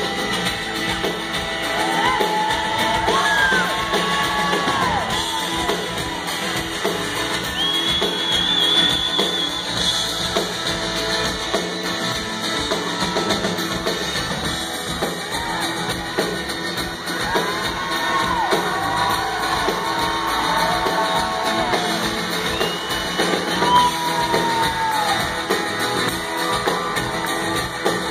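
Live rock band playing loudly, with drums and electric guitar. A lead line of notes bends up and down, about two seconds in and again in the second half.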